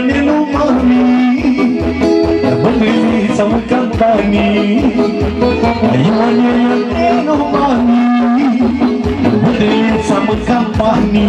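Live band playing Romanian folk dance music: a busy, ornamented melody over held notes and a steady, driving beat, with no words sung.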